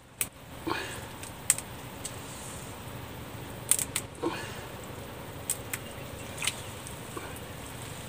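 Hands rummaging through wet mud and stones at a creek bank while feeling for crabs, with a few soft squishes and scattered sharp clicks.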